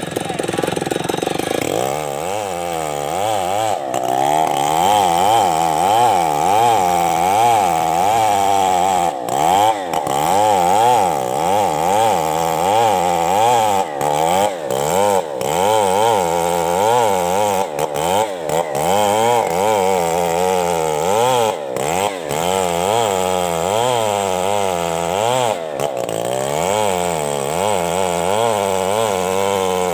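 Stihl chainsaw ripping lengthwise through a coconut palm trunk, running under load throughout. Its engine pitch rises and falls about once a second as the cut bogs and recovers, steadier for the first couple of seconds.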